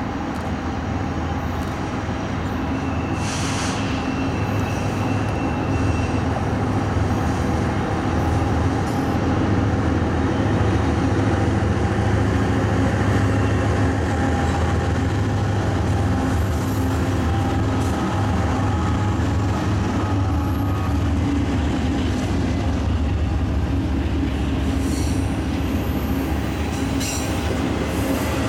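Four GE Evolution-series diesel locomotives, with V12 four-stroke engines, chugging under load as they haul a double-stack container train. They grow louder on the approach and are loudest as they pass about halfway through. Steel wheels of the stack cars then roll on the rails behind them.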